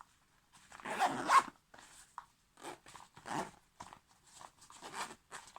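A zip being pulled in a series of short strokes, the loudest about a second in.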